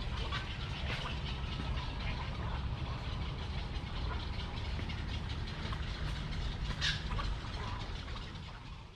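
Pond-side park ambience: a steady low rumble with scattered bird calls and one sharper call about seven seconds in, then everything fades out.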